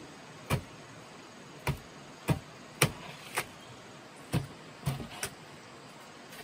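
A series of about eight sharp knocks at uneven intervals, over a faint steady hiss.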